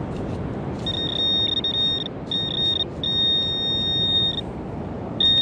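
Handheld metal detecting pinpointer probing a hole in beach sand, sounding a steady high-pitched alert tone in short broken beeps, then one longer held tone, then again near the end. It is signalling a metal target close by in the hole, which turns out to be a big nut.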